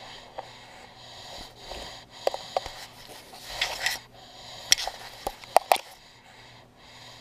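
Kitten nosing and pawing at a GoPro right on top of its microphone: close breathy sniffs and a series of sharp taps and scrapes on the camera housing.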